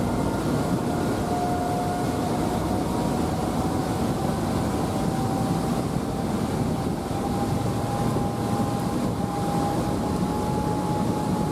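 Passenger ferry under way: a steady engine drone and rushing noise, with a faint high whine that rises slowly in pitch.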